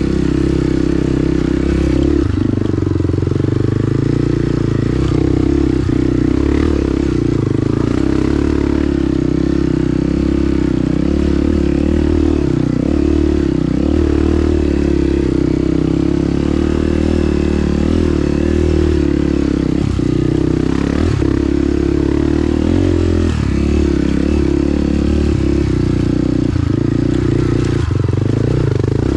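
Honda CRF 250F dirt bike's single-cylinder four-stroke engine running at a fairly steady pace while riding a trail, with occasional knocks and rattles.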